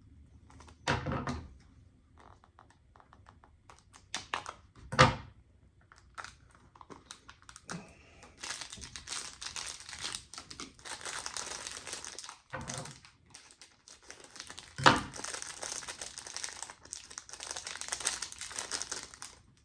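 Plastic packaging crinkling and rustling as a small bag of fishing tackle is handled and opened. There are a few sharp knocks early on, then almost continuous crinkling through the second half.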